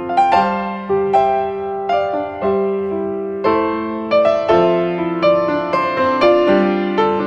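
Background piano music: a gentle, unhurried melody of single struck notes, each fading away after it is played.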